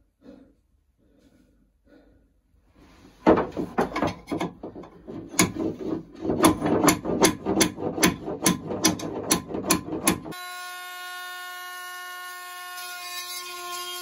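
Rasping cutting strokes, about two a second, as the old exhaust water lock fixed under a boat's inboard engine is cut loose. About ten seconds in they stop and music with steady held notes begins.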